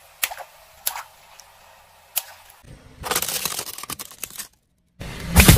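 A car tyre rolling over and crushing objects: a few sharp cracks at first, then a couple of seconds of dense crackling, and after a short break a loud crunching crackle near the end.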